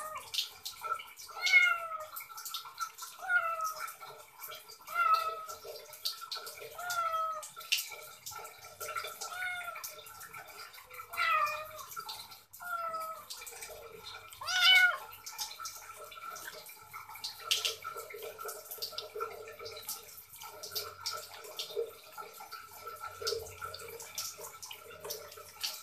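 Kitten meowing again and again while being lathered and washed, a short call every second or two that grows fainter and less frequent in the second half, with small wet handling clicks.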